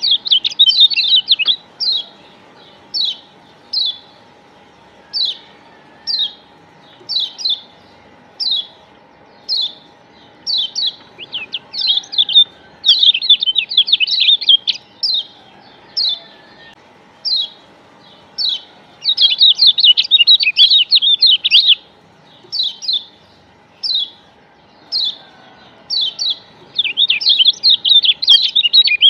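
Kecial kuning, the Lombok yellow white-eye (Zosterops), chirping in a lure (pancingan) recording: short high 'ciak' calls about once a second, broken by three bursts of fast chattering, near the middle, about two-thirds in, and near the end.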